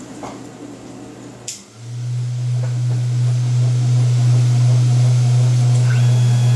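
Desktop CNC milling machine powering up: a click, then a steady low hum comes in over about a second and holds as the air-cooled spindle starts. Near the end a higher whine glides up, holds for about a second and glides down, as stepper motors move an axis.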